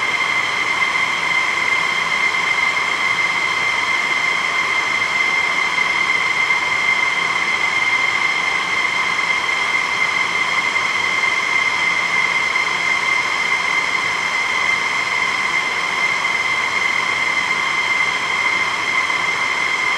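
F-16 fighter jet engines starting up: a loud, steady high-pitched whine with several overtones.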